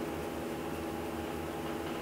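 Steady room hum with a few faint steady tones, nothing else happening.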